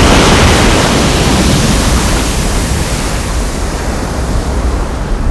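Explosion sound effect: a loud, even rushing rumble with no pitch, loudest at the start and slowly dying away.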